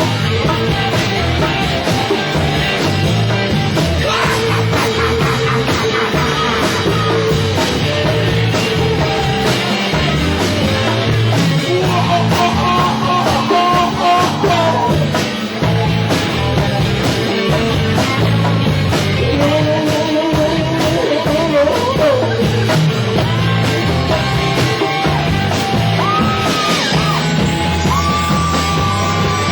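A rock band playing live, with electric guitar, bass and drums and sung or shouted vocals in several stretches.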